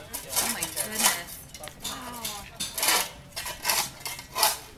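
Metal garden tools scraping and striking soil and stones as a flower bed is dug, a string of irregular sharp clinks.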